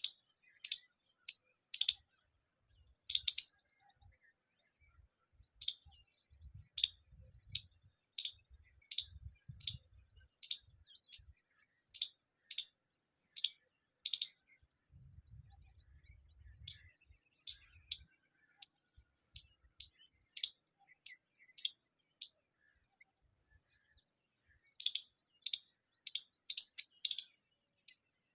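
Small birds chirping: short, sharp, high-pitched chirps, one or two a second, with a quick run of them near the end.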